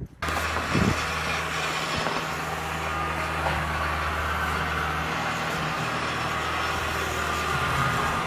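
Compact tractor's engine running steadily at a constant speed.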